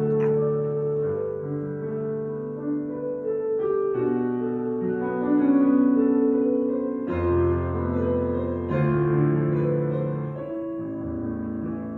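Solo piano playing a slow piece in long held chords, the bass note changing every second or two.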